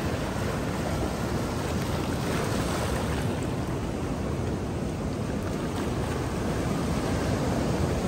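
Sea surf washing in among the rocks of a rocky shore: a steady, unbroken rush of water.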